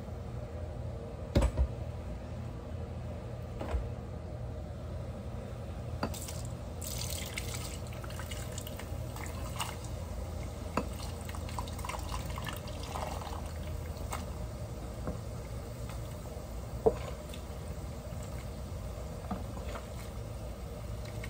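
Cooked shrimp being tipped from a metal pot into a bowl and scraped out with a spatula: a few sharp knocks of utensil against pot, the loudest about a second in and near the end, and a brief hiss of food sliding out about seven seconds in, over a steady low hum.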